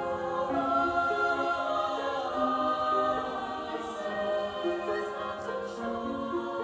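Choir singing slow, held chords, several voices sounding together, with the notes shifting every second or so.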